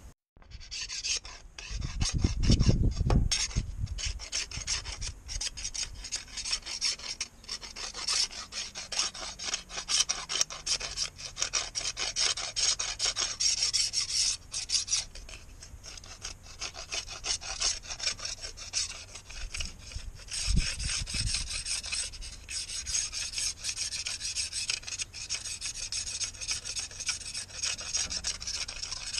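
A knife blade scraping along a thin painted metal window strip in quick repeated strokes, shaving off the old white coating. A couple of dull low thumps come about two to three seconds in and again about twenty seconds in.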